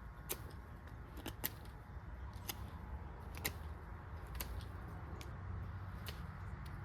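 A sharp handmade 1095 high-carbon steel bushcraft knife cutting into wood in a series of short, crisp strokes, roughly one a second.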